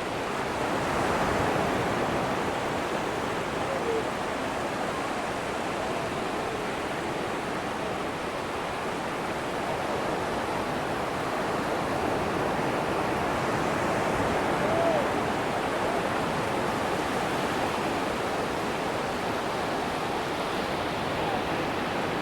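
Atlantic surf washing onto a sandy beach: a steady hiss of breaking waves that swells a little louder now and then.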